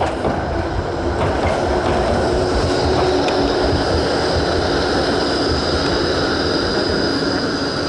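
A tram passing close by, its steel wheels running on the rails with a steady high-pitched squeal over the rolling noise. The sound starts abruptly.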